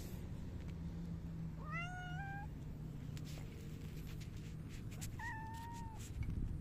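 Silver mackerel tabby cat meowing twice, the first call rising in pitch and the second one steadier, over a steady low hum.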